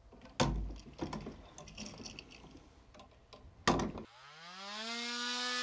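Screwdriver clicks and small knocks as a light switch is unscrewed and pulled from its wall box. About four seconds in, an oscillating multi-tool starts up, its whine rising in pitch and then holding steady.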